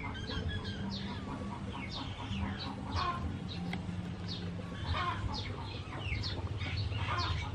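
Chickens clucking and chirping: many short calls that fall in pitch, scattered throughout, over a low steady hum.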